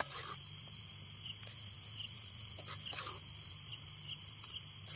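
Night crickets chirping in a steady high trill, with a few short scrapes and clinks from a steel ladle serving noodles out of a metal pan.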